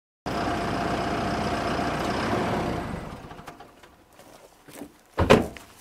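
A vehicle's engine running, with a steady hum carrying one held tone, which fades out about three seconds in. Near the end comes a single sharp thump.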